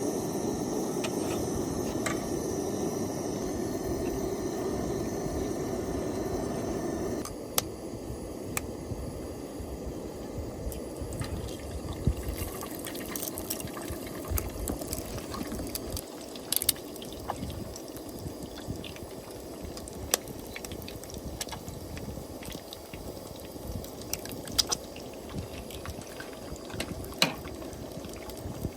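Liquid pouring steadily for about seven seconds, then stopping suddenly, followed by scattered small clicks and taps.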